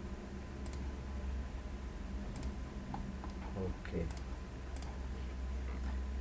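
Computer mouse clicking a few times, in sharp, spaced-out single clicks, over a steady low electrical hum.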